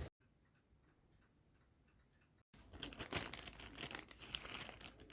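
Near silence for about two and a half seconds, then soft, irregular crinkling and rustling with small clicks, as something is handled.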